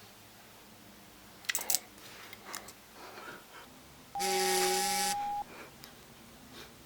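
A loud blast of a steady tone over a hiss, lasting about a second, about two-thirds of the way in. A few short clicks come before it.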